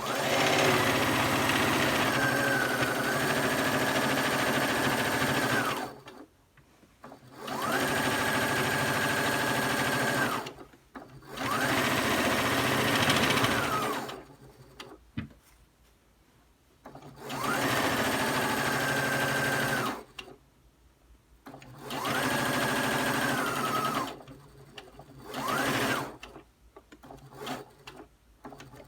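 Electric sewing machine stitching through fleece in six runs with short pauses between, each run speeding up to a steady high whine and slowing down again as the foot pedal is pressed and released. A single click sounds in one of the pauses.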